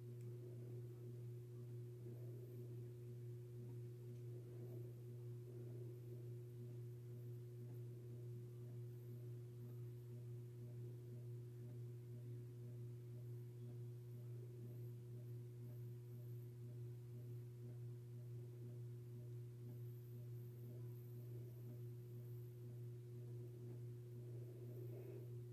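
A faint, steady low hum with a fainter higher tone above it, unchanging throughout.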